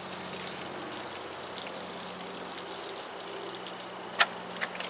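Water pouring out of a bullet-holed plastic gallon jug in a steady splashing stream, with a sharp click about four seconds in.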